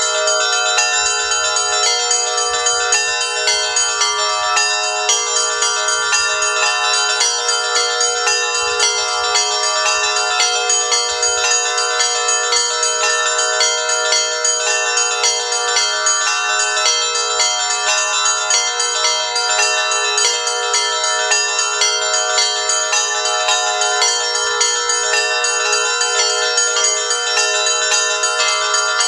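Russian Orthodox church bells ringing a continuous daytime peal (zvon). Quick strikes of the small bells run over steady ringing tones, without a pause.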